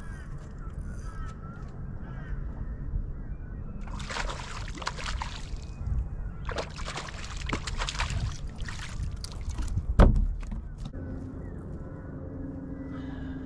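A small giant trevally hooked on a lure, splashing at the surface in two bouts as it is fought to the boat, then a single loud thump about ten seconds in; a steady low hum starts just after.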